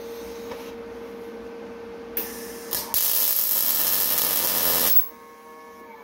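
Gasless MIG welder striking its arc twice briefly about two seconds in, then welding steadily for about two seconds before the arc cuts off sharply. A steady hum runs underneath beforehand.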